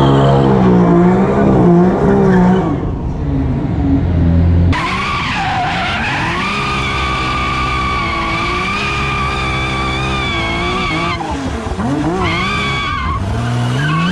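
Porsche 997 Turbo's twin-turbo Mezger flat-six held at high revs in a burnout, the spinning rear tyres squealing. From about five seconds in a steady high tyre squeal is the loudest sound, and near the end the engine revs rise and fall several times.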